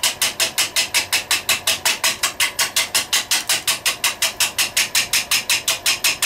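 Wood lathe turning a winged kiln-dried pine blank while a gouge makes light refining cuts: a rapid, even chopping, about six or seven hits a second, as the tool meets the wings on each turn and cuts air in between.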